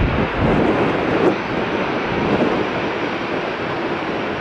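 Ryanair Boeing 737's jet engines at takeoff thrust during the takeoff roll, a steady loud rushing noise, with wind buffeting the microphone.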